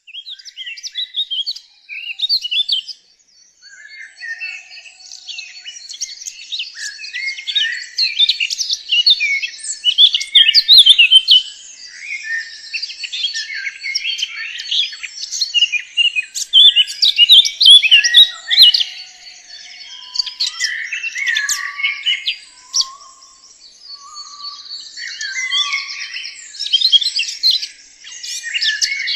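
Birdsong: several birds chirping and singing at once in a dense, continuous chorus of quick high chirps, with a few lower whistled notes about two-thirds of the way through.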